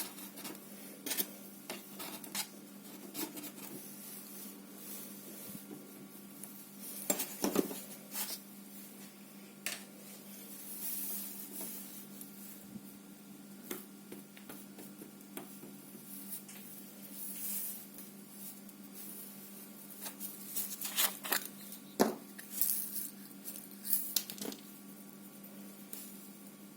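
Slime being squished and stretched by hand: scattered sticky clicks and small pops, thickest about seven seconds in and again from about twenty-one to twenty-four seconds.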